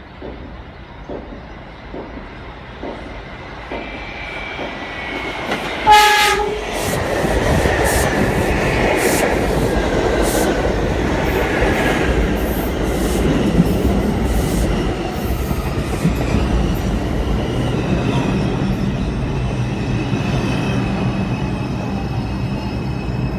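R142 New York subway train approaching, growing louder with wheel clicks over rail joints. It sounds one short horn blast about six seconds in, then runs loudly and close with clickety-clack wheel and rail noise. Steady motor whine tones come in near the end.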